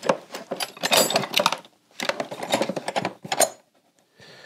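Metal spanners clinking and clattering together as someone rummages through them for the right size, in two bursts of about a second and a half each.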